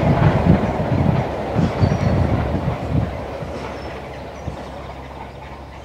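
Steam-hauled train running past on the line: the rumble of the carriages and their wheels on the rails, with irregular heavy beats, fading steadily from about three seconds in as the train draws away.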